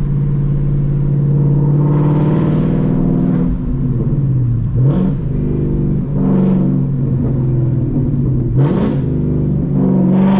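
Ford Mustang GT's 5.0-litre V8 accelerating through the gears of its six-speed manual, heard from inside the car: the revs climb, dip at a shift about five seconds in and again near nine seconds, then climb again. The car is loud.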